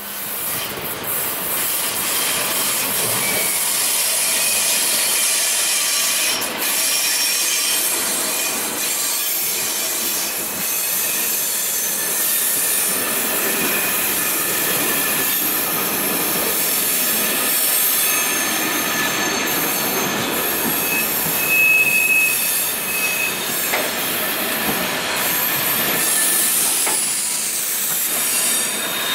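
Passenger train of České dráhy coaches rolling slowly along the platform as it pulls into the station. The wheels squeal against the rails, loudest a little past the middle.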